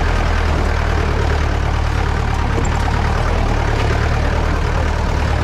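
Mahindra jeep's engine running steadily at low revs as the jeep crawls up a rocky dirt track.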